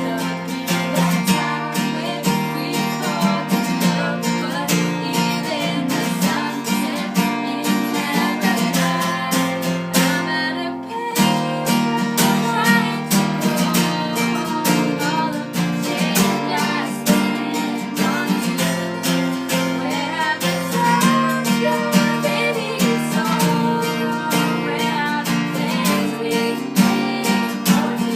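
Strummed acoustic guitar playing steady music, with a brief drop in the playing about eleven seconds in.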